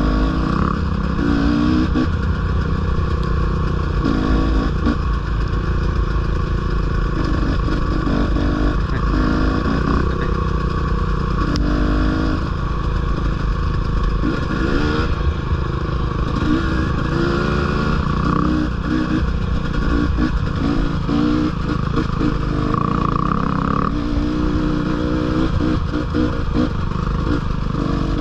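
Dirt bike engine running steadily under way on a trail ride, its pitch shifting up and down with the throttle, with clattering of the bike over rough ground and a low rumble of wind on the microphone.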